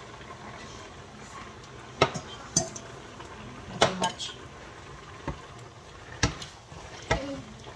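Wooden spatulas knocking and scraping against a wok as stir-fried vegetables and beef are tossed. About seven sharp clacks come at irregular intervals, starting about two seconds in.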